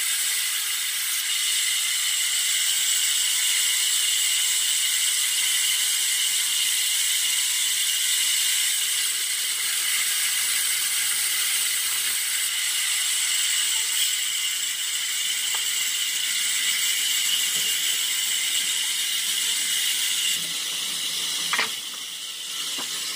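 Electric log saw running and ripping through a log as it is pushed along the bed, a steady high whine and hiss that holds the same pitch; it gets a little quieter near the end, with one click.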